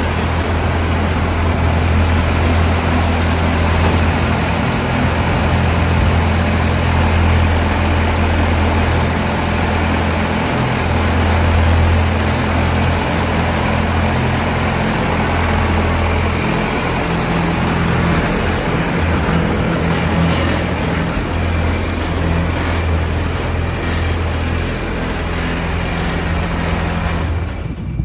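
Tracked combine harvester's engine running steadily with a deep hum as the machine is driven up onto a trailer; the sound stops abruptly near the end.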